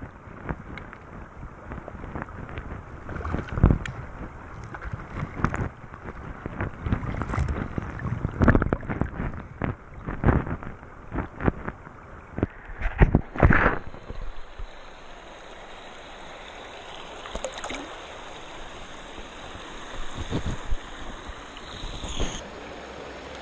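Action camera submerged in a shallow river: muffled sloshing with irregular knocks and bumps as it moves through the water. About fourteen seconds in it comes out of the water and the steady rush of the stream takes over.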